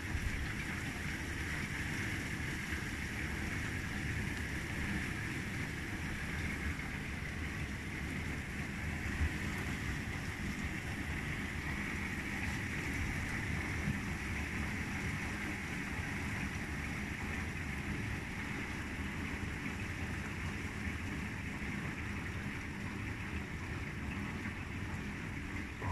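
Heavy rain pouring steadily onto a street and paving, a constant hiss with a low rumble underneath.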